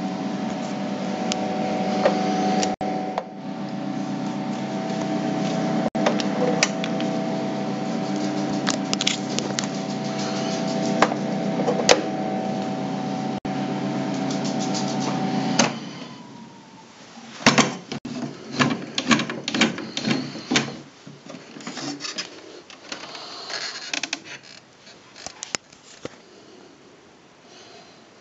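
Nobo Horizon 250C overhead projector's cooling fan running with a steady hum. About halfway through it stops and its tone falls away. Then come a series of clicks and knocks from handling the projector's casing.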